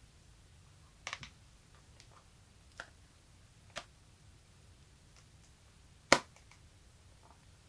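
Sony Tablet P's folding clamshell being opened and snapped shut by hand: several sharp clicks from the hinge and the two halves meeting, a double click about a second in and the loudest about six seconds in. It is recorded through a smartphone's built-in microphone.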